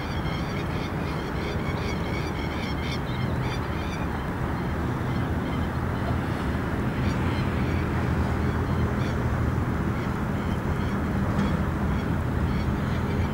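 Boeing 777-300ER's GE90 turbofan engines on landing: a steady jet roar with a low hum, a little louder from about seven seconds in as the jet touches down and rolls out. For the first four seconds a bird calls over it in quick, repeated honks.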